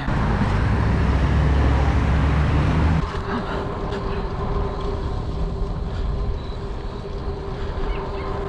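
Riding noise from a hardtail mountain bike on slick street tyres on asphalt: a loud low rumble for the first three seconds, then, after a cut, quieter rolling noise with a steady hum.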